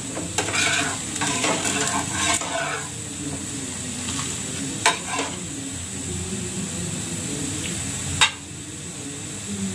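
Metal spatula scraping under a dosa on a hot iron tawa as it is lifted off, over the sizzle of the pan. Two sharp metal taps, about five and eight seconds in.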